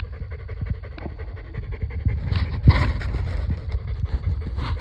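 Dogs panting in breathy bursts, over a steady low rumble.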